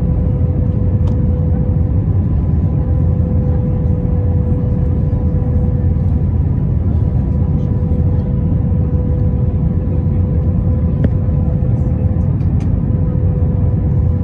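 Steady cabin noise inside an Airbus A321 on final approach with flaps extended: a loud, even low rumble of the engines and airflow with a steady hum running through it.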